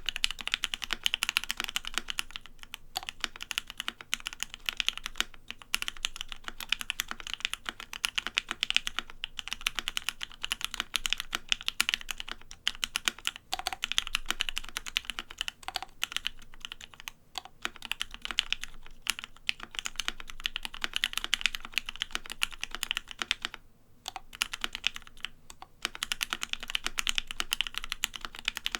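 Fast, continuous typing on a Savage65 mechanical keyboard with lubed Gateron Ink Black linear switches and GMK Oblivion ABS keycaps, broken by a few brief pauses.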